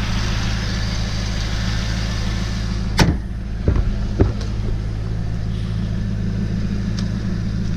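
2001 Corvette Z06's LS6 V8 idling steadily through its Borla exhaust, a low even rumble. A few short sharp clicks come about three and four seconds in.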